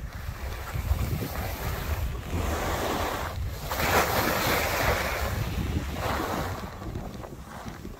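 Skiing downhill: wind buffeting the microphone over the hiss and scrape of skis on snow, which swells twice, about two seconds in and again about four seconds in.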